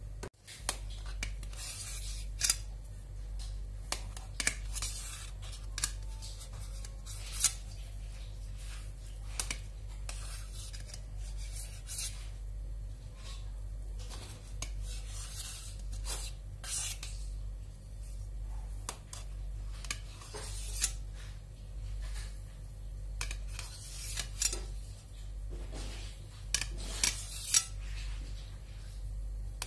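Serrated knife sawing through sponge cake in short, irregular strokes, its blade now and then scraping against the metal ring pan and tray, over a steady low hum.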